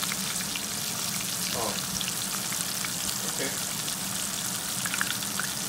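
Battered mushrooms deep-frying in hot oil in a cast-iron skillet: a steady sizzle with scattered crackles and pops.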